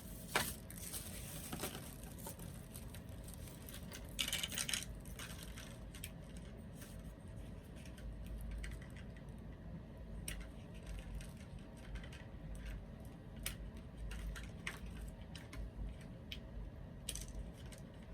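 Scattered small clicks and taps of hard plastic, with a brief crinkling rustle about four seconds in, as doll packaging and small accessories are handled.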